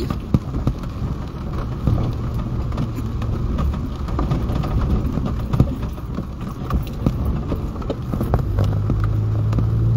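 Pickup truck driving slowly along a rain-soaked, flooded street, heard from inside the cab: the engine hums low and steady under a hiss of wet tyres, with scattered taps of rain. The engine hum grows louder near the end.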